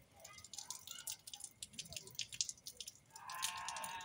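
Rainwater pouring from a roof spout and splattering, heard as steady irregular drips and splashes. About three seconds in, a brief pitched sound lasts about a second.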